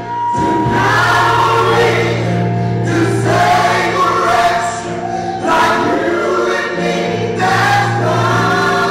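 Gospel choir singing with instrumental accompaniment, in sustained phrases a second or two long over a steady low backing.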